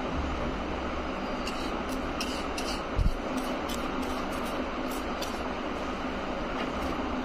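Steady rushing room noise, with faint short scratchy ticks of a paintbrush working on a paper plate and one dull thump about three seconds in.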